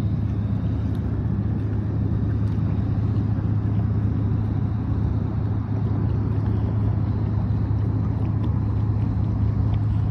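Small boat's motor running steadily under way, a constant low hum.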